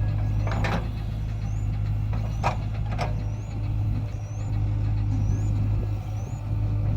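JCB 3DX backhoe loader's diesel engine running steadily with a deep hum, with three sharp clanks in the first half. A faint high chirp repeats about every three quarters of a second.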